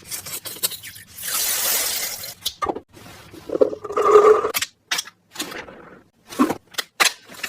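Handling noises from a toy gel blaster: a string of sharp plastic clicks and clinks, with a hiss lasting about a second, starting about a second in, and a brief ringing clink near the middle.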